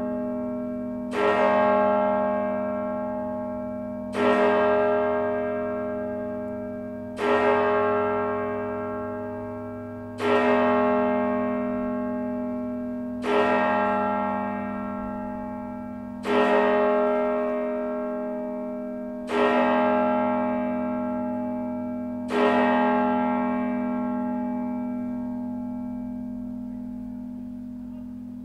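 Church tower clock bell striking the hour, eleven o'clock. One bell is struck eight times at a slow, even pace about three seconds apart, each stroke ringing on with a deep hum until the next. The last stroke dies away slowly.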